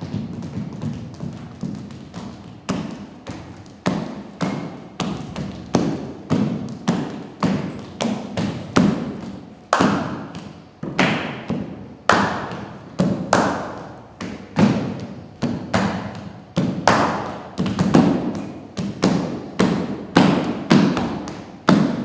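Dancers' feet stamping and landing on a stage floor: a long run of heavy thumps, about two a second, each with a short echo.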